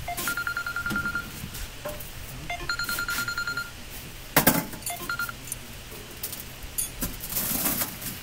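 Steel parts of a concrete block moulding machine knocking and clanking as they are handled and fitted, with one loud clank about halfway through. Over it, a fast, high pulsing beep comes in short trains about a second long, three times, then once more briefly.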